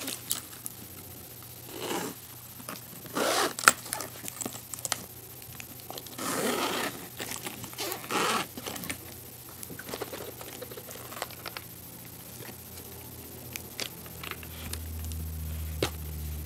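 Hands opening a hard zippered case: the zipper being pulled open and its plastic wrapping crinkling and tearing, in irregular bursts of a second or less, with scraping handling noise and a sharp click.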